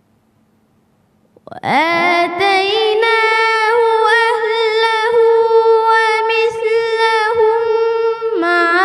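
A single high voice reciting the Quran in melodic tajweed style. It comes in about a second and a half in on one long held, ornamented note, which dips briefly near the end and then carries on.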